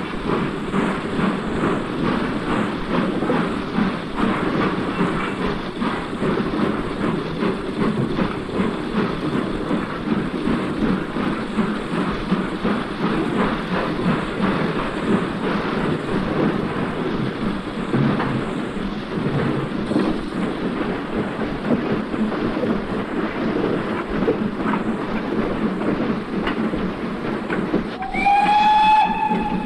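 Model trains running on a layout: a steady rumble of small motors and wheels with rapid clicking over the rail joints. Near the end comes a brief high-pitched whistle-like toot.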